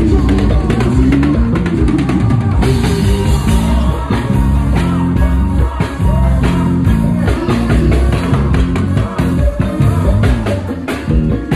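Live band playing a rock groove: an electric bass plucked with the fingers carries a moving bass line over a drum kit, with regular beats.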